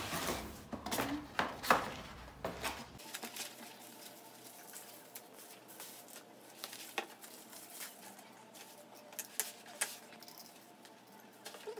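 Unboxing handling noise: cardboard flaps and bubble-wrapped ring light being handled, with crinkling plastic and scattered clicks and rustles, busiest in the first few seconds, then sparser ticks.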